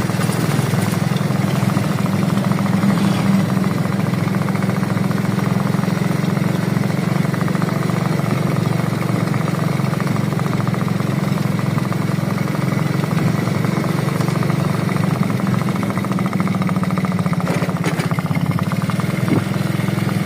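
An engine idling steadily, a low, even running hum.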